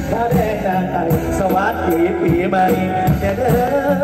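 Live mor lam band music played loud through the stage loudspeakers: a bending melodic lead line over bass and a drum beat.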